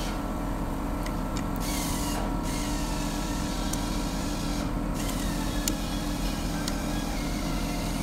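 Steady mechanical hum made of several fixed tones, with a few faint clicks.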